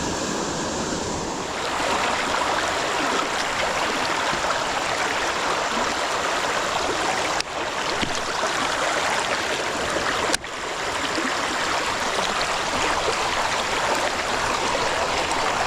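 Creek water rushing steadily, running high and fast after heavy rain. The sound cuts out for an instant twice midway.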